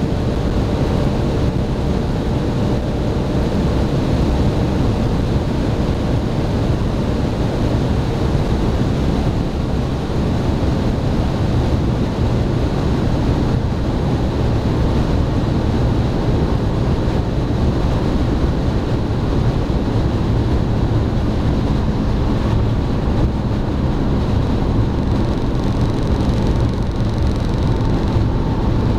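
Steady road and wind noise heard inside a BMW 330d's cabin at Autobahn speed, under the low drone of its straight-six turbodiesel.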